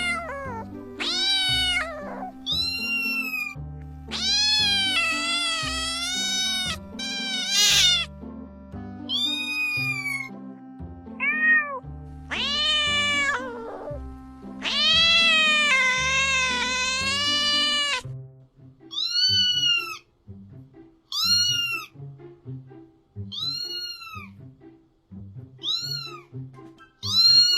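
Kittens meowing again and again, a string of rising-and-falling meows, some short and a few long and drawn out, over background music.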